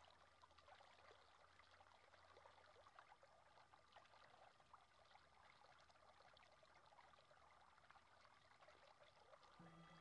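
Near silence: a faint, even background hiss with light crackle. Soft music fades in near the end.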